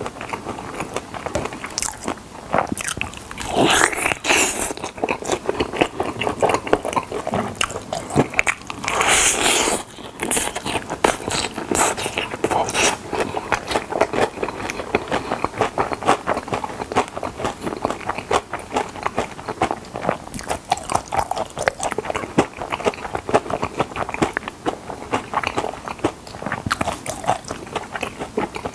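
Close-miked biting and chewing of chicken drumsticks: continuous crisp crunching and wet mouth clicks, with two louder, longer crunches about four and nine seconds in.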